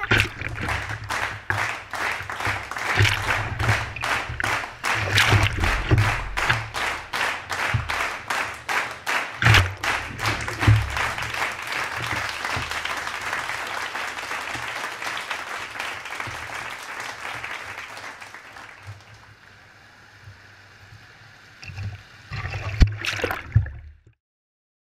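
Shallow surf washing around a skimboard, picked up through a GoPro housing: a steady hissing rush of water with quick regular pulses and low thumps, fading away in the second half, with a few knocks near the end before it cuts to silence.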